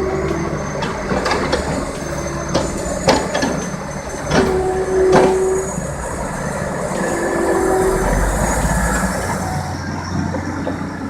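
Heavy log-handling machinery running with a steady rumble, with repeated metallic knocks and clanks of logs and steel. Two short squeals, the longer one about four and a half seconds in.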